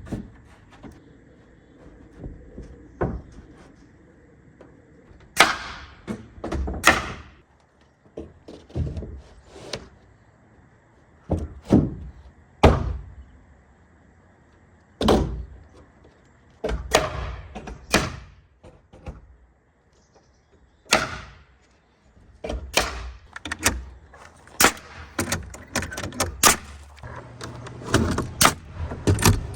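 A series of irregular knocks and bangs from hands-on work, some with a short ring after them; spaced a second or more apart at first, coming closer together in the second half.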